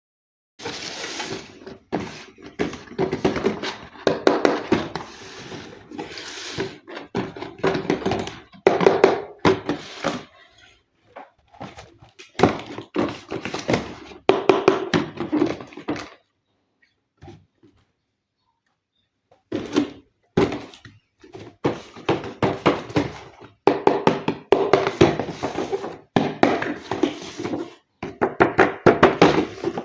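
Packaging of a boxed RC toy car being handled and opened: a dense run of clicks, knocks and rustles, with a pause of about three seconds a little past the middle.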